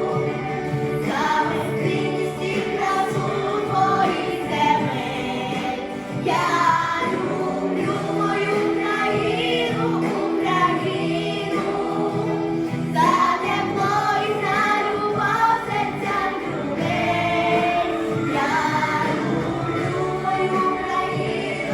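A song: a singer's voice, with choir-like voices, over instrumental backing music.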